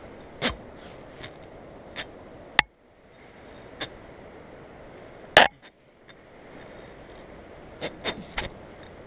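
Scattered sharp clicks and knocks of metal climbing hardware (a tandem pulley and carabiners on a steel zipline cable, with gloved hands gripping the cable) over a steady hiss. The rider is hauling himself hand over hand because the rope pulley will not roll on cable. The loudest knock comes about five seconds in, and a quick cluster of three comes near the end.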